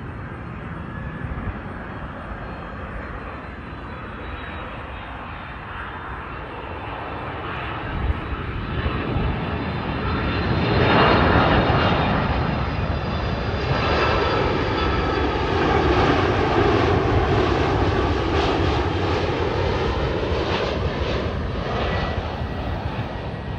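FedEx twin-engine jet freighter on approach with its landing gear down, passing low overhead. The jet engine noise swells steadily to a peak about halfway through. It then stays loud with a sweeping, phasing rush as the aircraft moves away.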